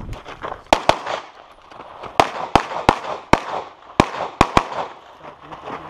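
Pistol fire during a practical shooting stage: about nine shots, beginning with a quick pair about a second in and followed by singles and pairs roughly a third to half a second apart. Each shot is a sharp crack with a short echo.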